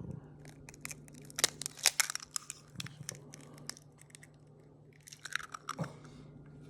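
Irregular clicks, crunches and crinkles of raw dog food being handled and tipped into a container, in two clusters with a pause between them, over a faint steady low hum.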